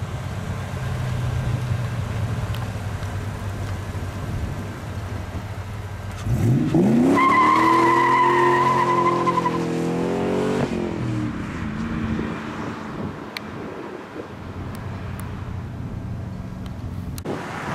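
Black Ford Mustang convertible accelerating hard. About six seconds in, the engine revs sharply upward, and a tyre squeal lasts about two seconds. The engine then runs on and fades as the car pulls away. Before that, a low steady engine rumble.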